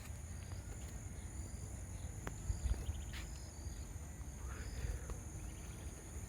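Quiet outdoor ambience: a steady high-pitched drone, with a few faint short chirps and a low rumble underneath.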